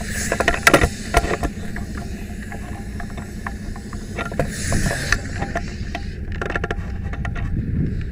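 Steady low rumble of a fire engine's motor running. Over it, a few sharp clattering knocks of gear come in the first second or so, and a short hiss about four and a half seconds in.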